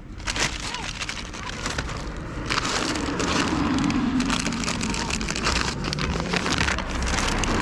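Plastic bag rustling and crinkling as bird feed is handled, a dense run of small crackles and clicks that grows louder about two and a half seconds in.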